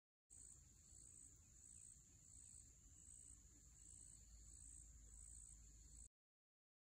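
Faint chorus of insects shrilling: a steady high-pitched buzz that swells in an even pulse a little over once a second. It cuts off suddenly near the end.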